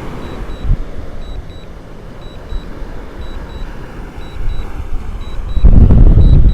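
Wind buffeting the microphone, with a strong gust near the end. Over it, a faint high double beep repeats about once a second, the drone controller's alert tone.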